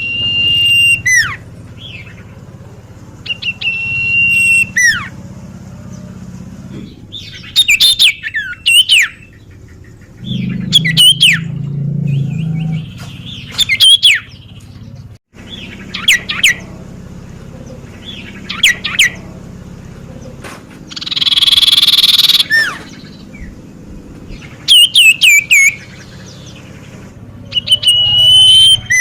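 Common iora (cipoh) singing: repeated phrases of a held high whistle breaking into quick falling notes, every couple of seconds, with one longer harsh rasping call a little past the middle.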